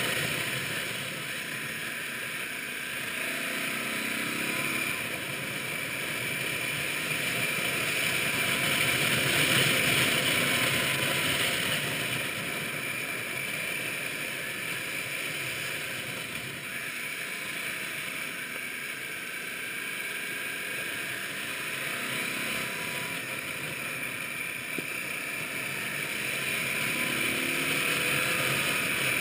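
Motorcycle on the move, heard from on the bike: a steady rush of wind over the microphone with the engine running underneath, its pitch rising a couple of times as the bike accelerates.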